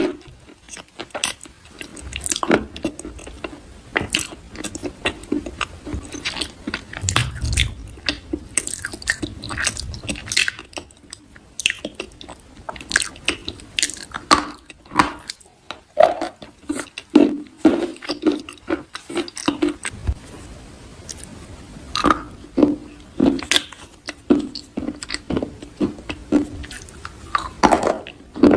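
Close-miked soft crunching: a dense run of irregular crackles and crunches, like something brittle being bitten or crushed.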